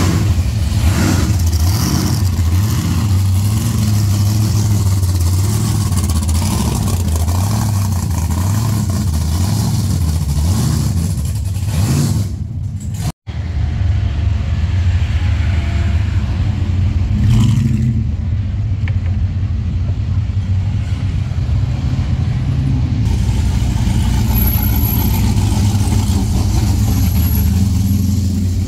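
Modified street cars cruising slowly past one after another at close range, their loud engines running with a deep, steady exhaust note; the first is a sedan with a supercharger sticking up through its bonnet.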